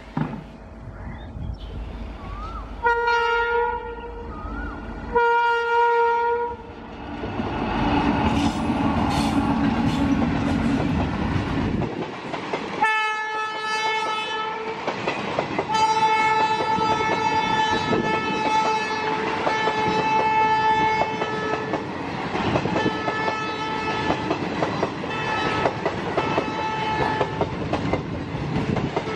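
Electric locomotive sounding two blasts on its air horn, then passing with a low rumble, followed by its passenger coaches running by with a steady clickety-clack of wheels over rail joints and a high squeal from their running gear that holds and flickers for most of the rest.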